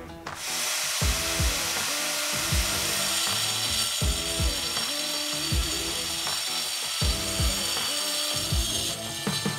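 Corded angle grinder with a cutting disc running and cutting into a plastered wall. It starts suddenly about a third of a second in and carries on as a steady, loud grinding hiss with a high whine. Background music with a steady beat plays underneath.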